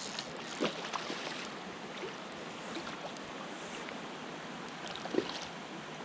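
Steady rush of running water, with a few short splashes as a hooked fish tires while being played in.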